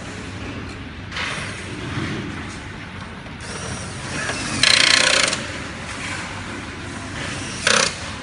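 Mechanical clicking and rattling from hand-tool work, with a loud noisy burst about five seconds in and a shorter one near the end.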